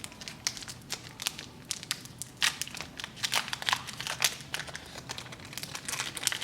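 Foil wrapper of a Pokémon Lost Thunder booster pack being torn open and crinkled by hand, a run of irregular sharp crackles.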